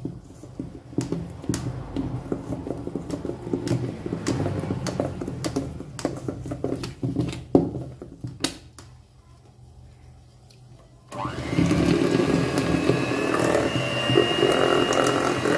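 Electric hand mixer beating thick brownie batter in a steel bowl, the beaters knocking against the bowl at first. It drops quieter for a couple of seconds, then comes on strongly about eleven seconds in with a steady high motor whine.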